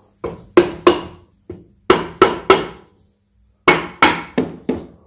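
A soft-faced mallet tapping the alloy inner gearbox cover of a 1975 Triumph Trident T160 engine home onto the gearbox, so that the gear-change mechanism engages and indexes. About eleven sharp taps come in three quick groups.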